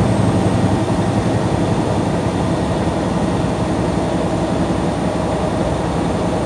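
Steady drone of a truck heard from inside the cab, engine and road noise running evenly with no change.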